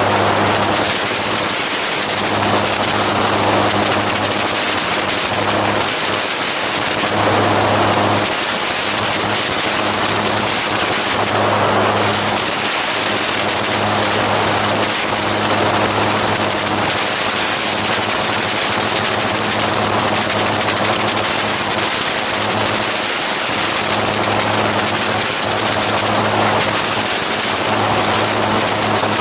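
Gyroplane engine and pusher propeller running steadily in cruise flight, with heavy wind rush over the microphone that swells and eases every few seconds.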